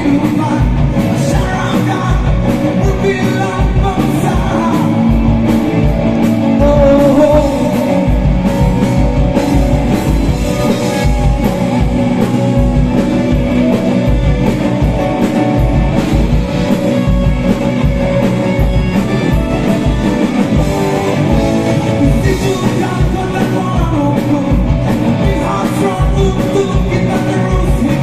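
A live rock band playing with a male singer: electric and acoustic guitars, bass and drums, with a steady drum beat throughout.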